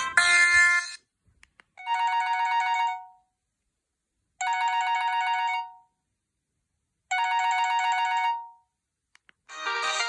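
Preloaded ringtones on a Huawei U120S mobile phone previewing through its small speaker as the menu is scrolled: one tone cuts off about a second in, then a short ringing phrase plays three times with gaps of silence between, and a new, busier melody starts just before the end. Faint keypad clicks fall between the tones.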